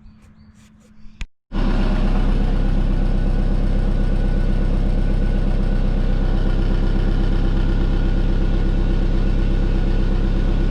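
Turbocharged Subaru flat-four engine idling steadily, coming in suddenly about a second and a half in after a few faint clicks. The exhaust is leaking at the external wastegate.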